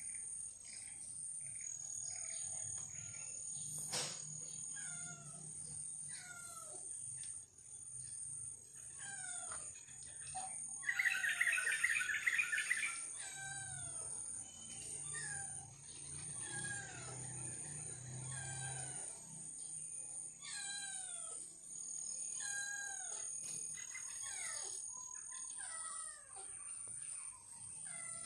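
Small birds chirping outdoors: many short downward-sliding chirps throughout, over a steady high-pitched insect drone. Around the middle, a louder buzzing chatter lasts about two seconds.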